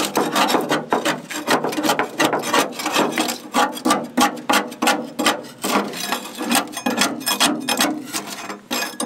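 A flat steel bar scraping and chipping rotten wood off the steel floor of a boat locker, in rapid repeated strokes of wood and metal.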